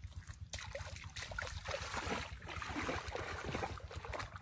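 Shallow muddy water sloshing and splashing around a person's feet and legs as they wade in, loudest in the middle stretch.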